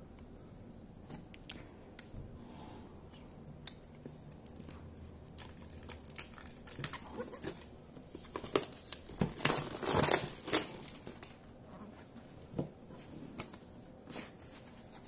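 Packaging on a small cardboard tablet box being handled and unwrapped by hand: scattered light clicks and taps, then a louder stretch of tearing and crinkling from about nine to eleven seconds in.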